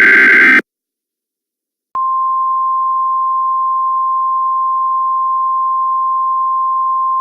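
Emergency Alert System alert opening: a harsh buzzing digital header burst ends about half a second in. After a short silence, the long steady single-pitch attention tone sounds for about five seconds and then cuts off abruptly.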